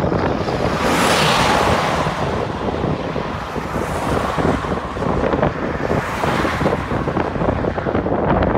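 Gusty storm wind rushing and buffeting the microphone. It swells loudest between about one and two seconds in.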